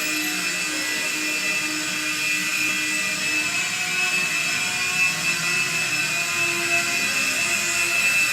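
Mini remote-control toy helicopter's small electric motors and rotors running in flight, a steady high-pitched whine.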